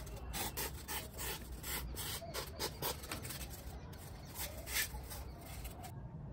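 Sandpaper on a flat stick rasping against a thermocol (polystyrene foam) fuselage nose in quick back-and-forth strokes, about three a second. The strokes stop about six seconds in.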